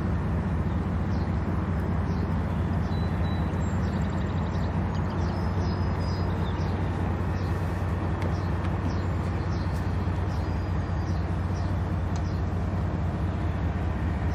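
GE ES44DC diesel locomotive engine running with a steady low drone, not yet changing in pitch or loudness. Birds chirp now and then above it.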